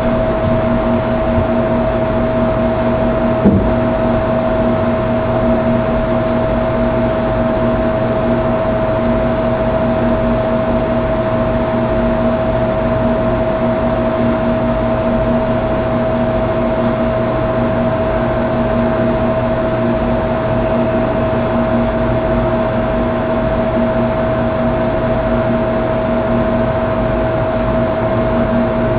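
Steady background hum with a constant tone over hiss, and a single click about three and a half seconds in.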